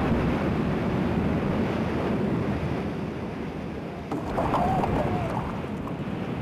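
Steady rushing of sea waves and wind, the sound of ships moving through choppy water, with a brief wavering pitched sound about four seconds in.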